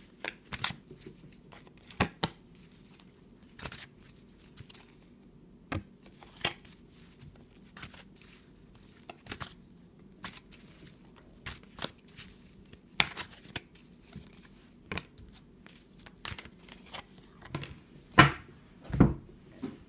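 A tarot deck being shuffled by hand: scattered soft slaps and rustles of cards sliding against each other, with a few louder knocks of the cards near the end.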